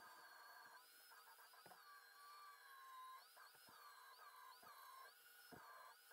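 Angle grinder grinding a steel frame cross brace, heard faintly, its whine wavering in pitch as it bites into the metal, with a few short clicks.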